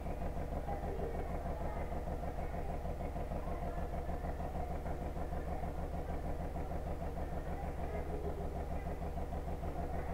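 An engine idling steadily: a low, even drone with a fast flutter that does not change.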